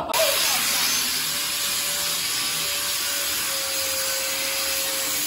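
A handheld power tool, most likely a grinder, runs steadily with a loud hissing rush and a faint even whine. Near the end it is let off, and the whine falls as it spins down.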